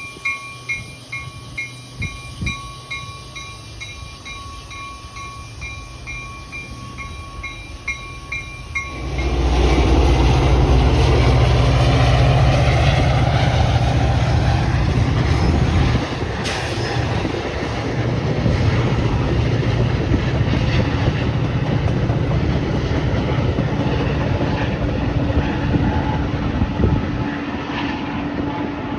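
A bell ringing about twice a second, then about nine seconds in a Metra diesel commuter train comes through loudly: locomotive engine running deep and steady over the rumble and clatter of wheels on the rails. A steady low hum joins near the end.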